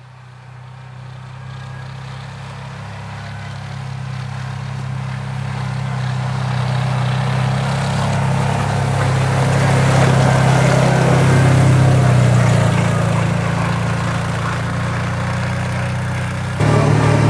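Engine of a tracked Kawasaki Teryx 800 side-by-side running as the machine drives along a snowy trail, growing steadily louder as it approaches, then dropping slightly in pitch and fading a little as it passes and moves away. It cuts abruptly to a louder engine sound near the end.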